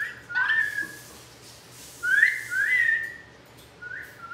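Pet parrot whistling: a series of rising whistled notes that rise and then level off and hold. The two longest and loudest come back to back about two seconds in, with shorter ones at the start and near the end.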